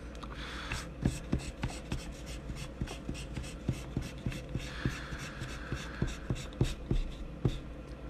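Pencil drawing being erased and cleaned: an eraser and hand rubbing on drawing paper in short strokes, with many small taps and clicks. Two longer stretches of rubbing come about half a second in and around five to six seconds in.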